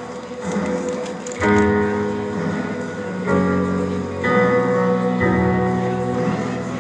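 Piano intro to a ballad in a live concert recording: slow held chords that change every second or so, before the singing comes in.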